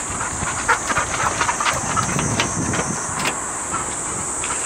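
Cicadas droning steadily in a high, even buzz, with scattered light knocks and rustles.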